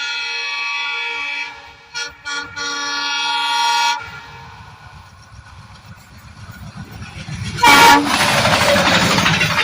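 Twin ALCO WDG3A diesel locomotives sounding a long multi-tone air horn, broken twice by short gaps, which stops about four seconds in. The low rumble of the approaching train then builds. Near the end a short, very loud blast marks the locomotives passing close, followed by a heavy rush of engine and track noise.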